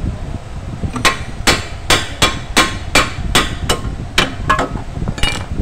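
Hammer striking the steel hub and steering knuckle of a Suzuki Multicab's front wheel, about eleven sharp, even blows at roughly three a second starting about a second in, each with a short metallic ring. The blows are driving out the front hub bearing, which is worn and noisy when the vehicle runs at speed.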